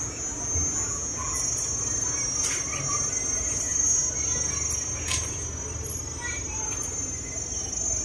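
Insects droning: a steady, high-pitched, unbroken buzz.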